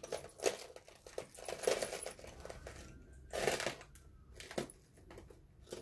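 Costume jewelry clinking and rattling as it is handled: a scatter of small metallic clicks with a light rustle between them.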